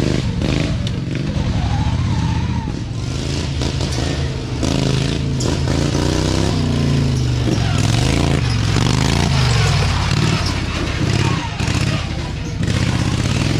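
Racing lawn mower engines running hard at high revs, the pitch rising and falling as the throttle is worked.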